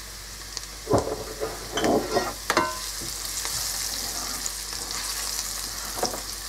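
Onions and spices sizzling in hot oil in a frying pan while a wooden spoon stirs them. Several knocks and scrapes of the spoon against the pan come in the first few seconds, and the sizzle grows louder once the stirring gets going.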